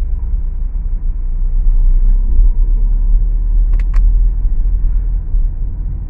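Steady low rumble of a moving road vehicle, heard from on board, with two short sharp clicks close together a little under four seconds in.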